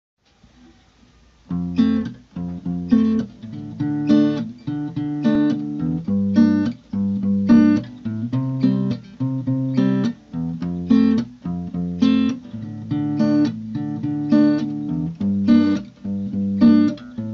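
Background music: an acoustic guitar strummed in a steady rhythm, starting about a second and a half in.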